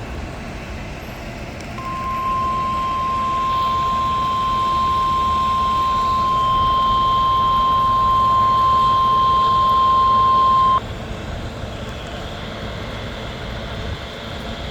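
NOAA Weather Radio 1050 Hz warning alarm tone, played through weather radio receivers during the weekly test: one steady beep about two seconds in, held for about nine seconds and cutting off suddenly. Radio hiss runs under it and on after it.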